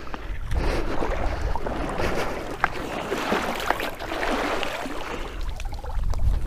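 Water sloshing and splashing in uneven swells, with a few small clicks, as someone moves through shallow marsh water.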